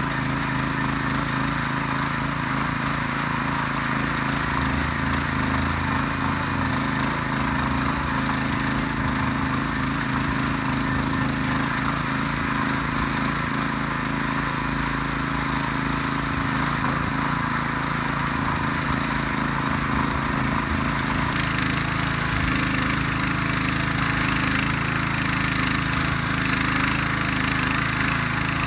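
Ruris DAC 7000 ACC2 motor hoe (rotary tiller) running steadily under load, its tines churning dry garden soil. The engine hum grows a little louder and brighter about three quarters of the way through.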